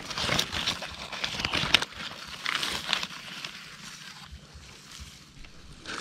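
Dry leaf litter and twigs rustling and crackling as they are disturbed, in clusters of sharp crackles that are busiest in the first two seconds and again briefly near the middle, then quieter.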